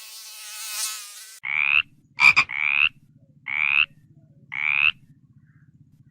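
An insect buzzing for about a second and a half, cut off abruptly. Then a frog calling about once a second, each call a short, slightly rising croak, with one sharp click about two seconds in.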